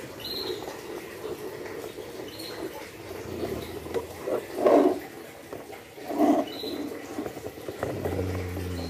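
Plastic toy bus pushed by hand across a tiled floor, its plastic wheels rolling and scraping, with two louder short sounds about halfway through.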